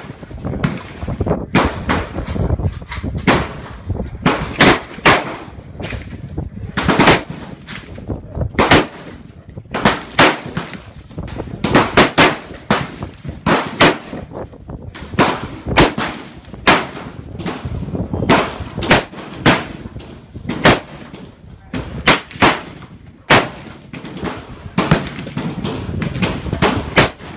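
AR-15 rifle fire: dozens of sharp, loud shots in irregular strings, sometimes several in quick succession, with a low rumble lingering between them.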